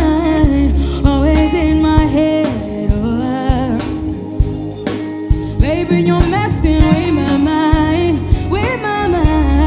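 Live song: a singer's voice gliding through runs without clear words, over a band with deep bass and a steady drum beat about two hits a second.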